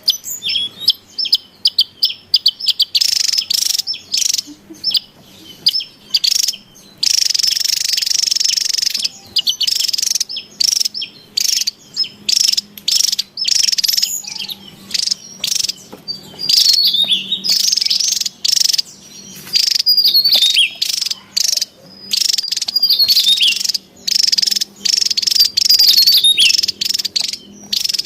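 Javan tesia calling: rapid, high chirps and twittering phrases with quick up-and-down glides. About seven seconds in there is a dense buzzing stretch of about two seconds.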